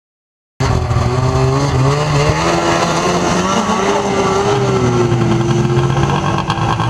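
Snowmobile engine running hard at high revs as the sled skims across open water. It cuts in abruptly about half a second in, and its pitch wavers and dips slightly.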